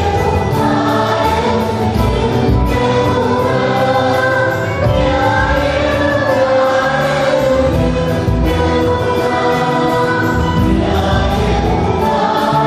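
Church choir singing a hymn during Mass, held notes over instrumental accompaniment with a steady low pulse.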